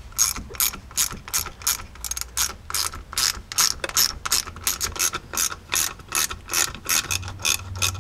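A hand socket ratchet clicking in a steady run, about three to four clicks a second. It is unscrewing the 5/16 bolts of the U-joint strap at the rear driveshaft's axle yoke.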